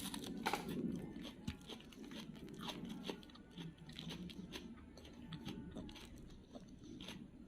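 A person chewing food close to the microphone, with irregular crunching bites.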